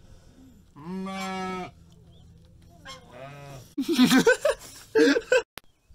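Farm animals bleating: a long, level-pitched bleat about a second in and a shorter one about three seconds in, followed by louder, wavering calls between about four and five seconds in.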